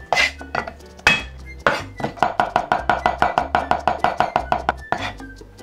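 Chinese cleaver chopping garlic on a wooden cutting board: a few separate heavy strikes, then fast, even mincing at about ten strokes a second that stops shortly before the end.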